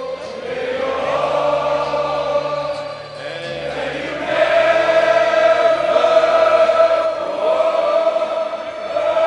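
Stadium crowd of football supporters singing together in unison, holding long notes; the singing swells louder about four and a half seconds in.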